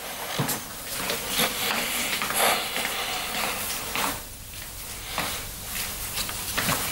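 Footsteps on a wooden floor as a man walks in, a few separate steps heard over a steady hiss-like room noise.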